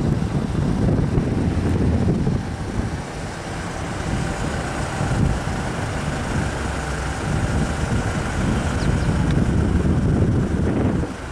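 Gusty wind rumbling on the microphone, over the low sound of a small flatbed truck towing a trailer as it drives slowly forward.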